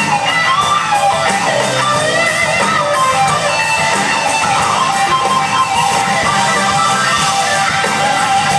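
Live rock band playing loud: an electric guitar carries a wavering lead line with bending notes over drums and bass.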